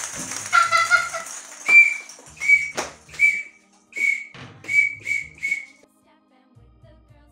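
A series of seven short, sharp whistle blasts blown by a child, spaced under a second apart and coming quicker near the end. A longer, lower tone comes near the start, and a single thump falls between the blasts.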